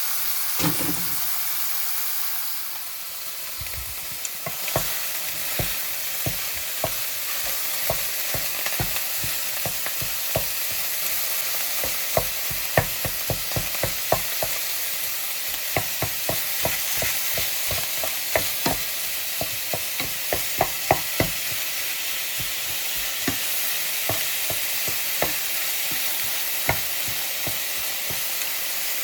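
Minced meat sizzling as it fries in an oiled pan. A utensil knocks and scrapes against the pan several times a second as the mince is stirred.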